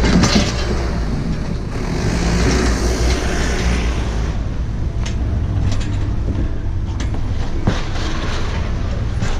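Steady low vehicle rumble with road hiss and a few sharp clicks.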